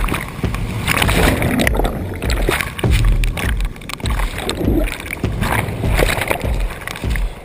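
Breaking surf churning around a kayak: whitewater rushing and splashing over the boat and camera in surges, with irregular low thuds.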